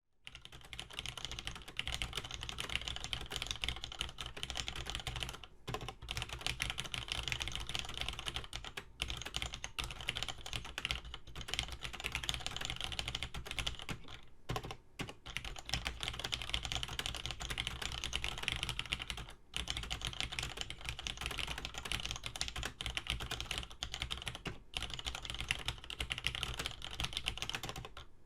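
Continuous fast typing on a Cherry G80-1800 mechanical keyboard with Cherry MX Black linear switches and GMK keycaps, keystrokes clattering with brief pauses every few seconds.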